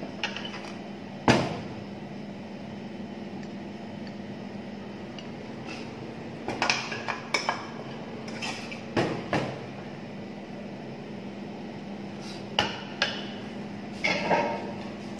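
Sharp knocks and clinks of a ceramic plate and utensils against a stainless-steel counter, scattered through, the loudest about a second in, over a steady low hum.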